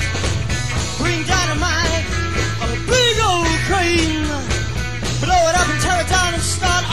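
Live 1960s psychedelic rock band playing, heard as a direct soundboard recording: steady bass and electric guitar, with a voice singing a gliding melody that comes in about a second in.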